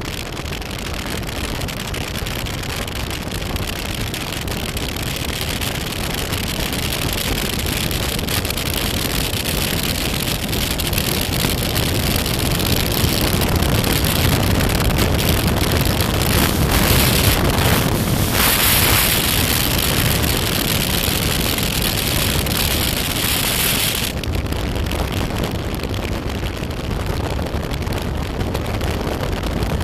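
Motorcycle riding along, its engine drone buried under heavy wind noise on the microphone. The rushing hiss builds up and then drops back sharply about 24 seconds in.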